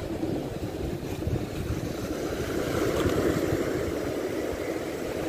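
Waves breaking and washing over the rocks below a seawall, with wind rumbling on the microphone. The rush swells to a peak about three seconds in, then eases.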